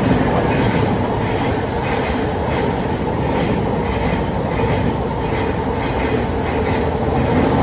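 Class 700 electric multiple unit running through on the rails: a steady, loud rumble and rush of wheels on track with a regular clatter repeating through it.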